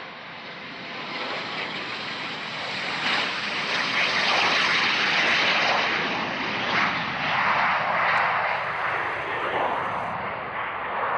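Bombardier Challenger 300 business jet taking off, its two Honeywell HTF7000 turbofans at takeoff power. The jet noise builds over the first few seconds as it rolls and lifts off, stays loud, then eases slightly near the end as it climbs away.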